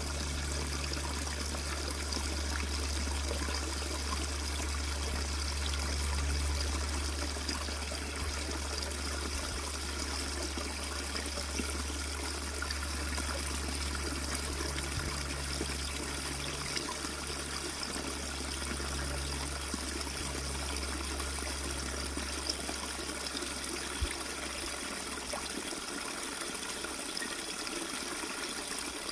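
Small woodland stream trickling and splashing over rocks, a steady flow of water. A low rumble underneath fades away near the end.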